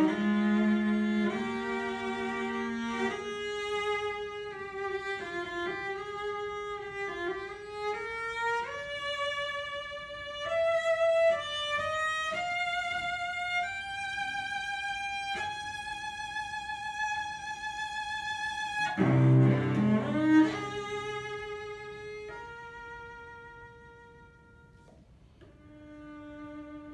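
Unaccompanied cello bowing a slow melody of long held notes that climbs from the low register to a high note held with vibrato. About two-thirds through come a few loud low strokes, then soft, quiet notes.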